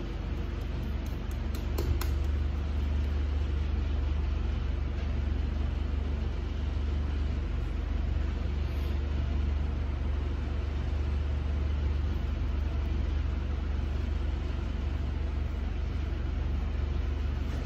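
Steady low hum of an idling truck engine, with a few faint clicks in the first two seconds.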